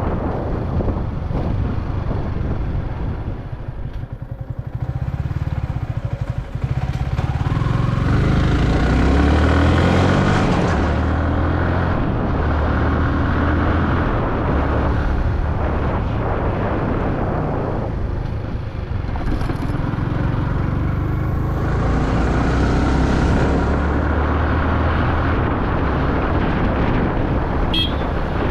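Yamaha R15 V3's single-cylinder engine running on the move. It eases off a few seconds in, then climbs in pitch as it accelerates, and it eases off and picks up again later on.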